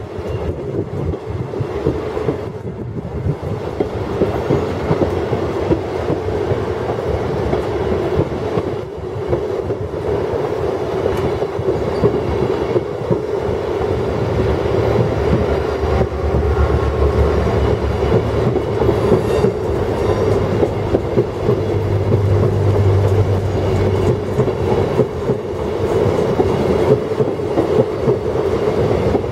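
Venice Simplon-Orient-Express Wagons-Lits carriages rolling past on the track. Their wheels make a steady rumble on the rails, with wheel clacks over the rail joints, growing slightly louder over the stretch.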